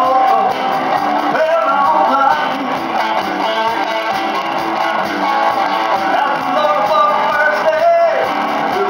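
A live blues-rock band playing: an electric guitar carries the lead with bending notes, over bass guitar and keyboard.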